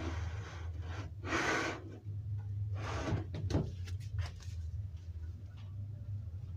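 Kitchen utensils being handled and set into a countertop utensil holder: a couple of brief rustles, then light clinks and knocks from about halfway in, over a steady low hum.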